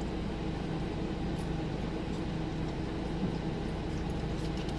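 Steady low hum and rush of air inside a car's cabin with the engine idling.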